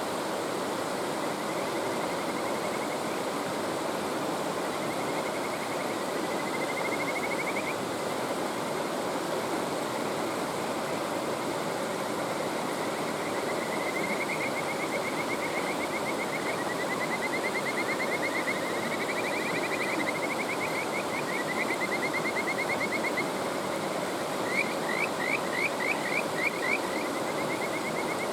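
Kajika frogs (Buergeria buergeri) calling over a steady rushing mountain stream. Their calls are repeated trains of quick rising notes, sometimes overlapping, and near the end comes a louder, slower run of separate rising calls.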